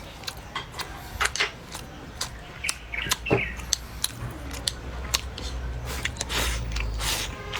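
A person eating: chewing with a string of irregular sharp clicks and smacks.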